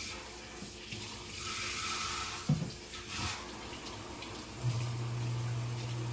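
Eggs and hot sauce sizzling in a nonstick frying pan, the hiss swelling between about one and three seconds in, with a soft knock midway. A steady low hum starts about two-thirds of the way through.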